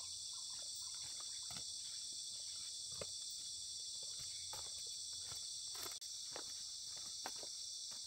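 Steady high-pitched insect chorus, with scattered soft knocks and clicks over it.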